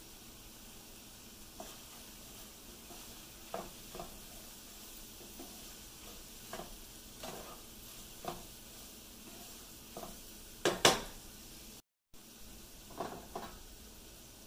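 Wooden spatula stirring ground beef and mixed vegetables in a frying pan: scattered scrapes and knocks against the pan, the loudest two about eleven seconds in, over a faint steady sizzle.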